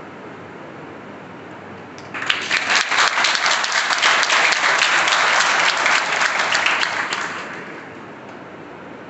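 Audience applauding: the clapping starts suddenly about two seconds in, holds for about five seconds and dies away.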